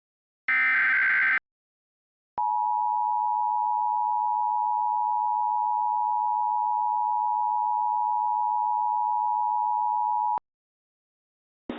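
An Emergency Alert System SAME header data burst, a brief buzzy digital warble of about a second, followed after a short gap by the EAS attention signal: the 853 and 960 Hz two-tone alert held steady for about eight seconds, then cut off abruptly.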